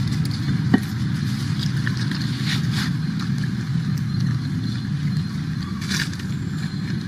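Steady low rumble of outdoor background noise, with a few faint short clicks about a second in, again near the middle and near the end.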